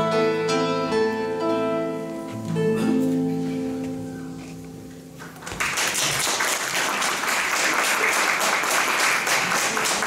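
Two classical guitars play the closing chords of a bard song, ringing out and fading away. About five and a half seconds in, audience applause starts and carries on.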